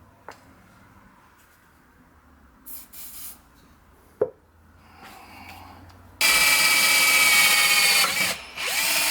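IKEA cordless drill with a small twist bit drilling into a bolt that has just been oiled. After a few quiet seconds of small handling clicks and one sharp knock, the drill starts suddenly about six seconds in and runs loud. It stops briefly, then speeds up again near the end.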